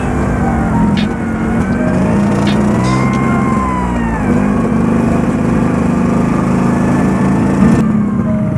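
Vespa scooter engine running under way through an aftermarket exhaust. Its note shifts, dipping and rising, for a moment around the middle as the speed changes.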